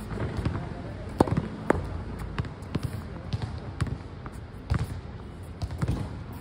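Tennis ball knocks: struck by the racket, hitting the practice wall and bouncing on the hard court, a scattering of short, sharp impacts at uneven intervals.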